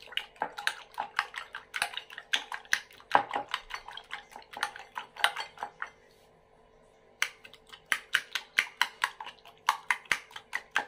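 Metal spoon clinking rapidly against a glass bowl while beating eggs, about four to five taps a second, with a short pause about six seconds in.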